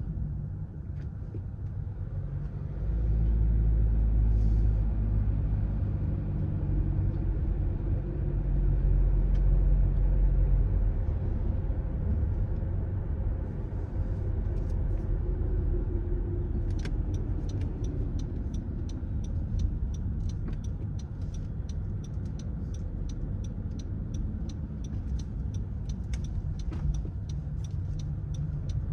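A car driving, with steady low engine and tyre rumble that grows louder for several seconds early on and then eases. About halfway through, a regular light ticking starts, two to three ticks a second, and runs on under the rumble.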